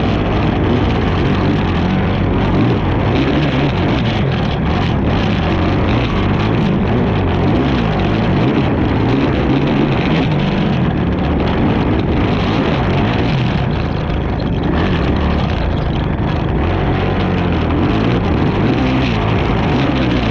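Racing ATV engine running hard, revving up and down continuously as it is ridden.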